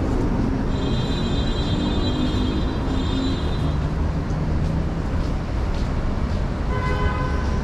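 Street traffic noise: a steady low rumble of passing vehicles. About a second in, a high-pitched squeal lasts for about three seconds, and near the end a short pitched tone sounds.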